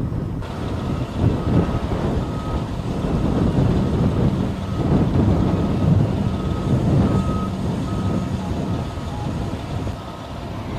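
A large vehicle's reversing alarm beeping at one steady pitch, about twice a second, at times fading, over a loud low rumble.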